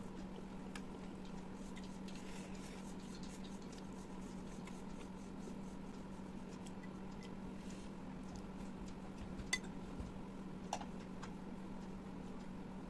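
Close-miked eating sounds: small wet clicks and smacks of chewing and handling food, with two sharper clicks near the end, over a steady low hum.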